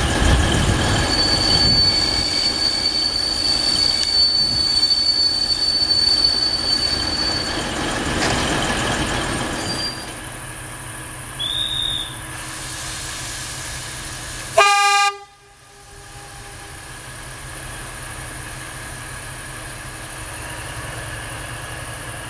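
A diesel-hydraulic locomotive rolls in on the next track beside a standing diesel railcar, with a steady high-pitched squeal for several seconds over the rumble. About fifteen seconds in, a short train horn blast cuts off abruptly. After that the diesel engines idle steadily and more quietly.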